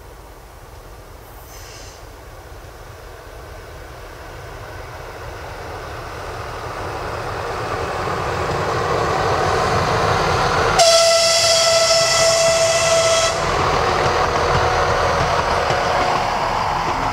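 RA2 diesel railbus approaching and passing, its running noise growing steadily louder. About eleven seconds in it gives one long horn blast of about two and a half seconds on a single steady note, and the running noise then carries on and slowly fades.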